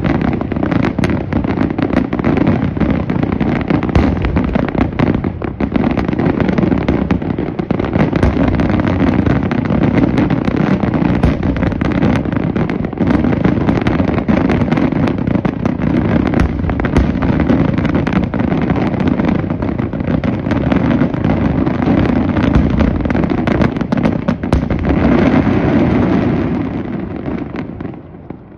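A continuous barrage of aerial fireworks bursting in the sky: countless rapid bangs and crackles run together into one steady din, fading away near the end.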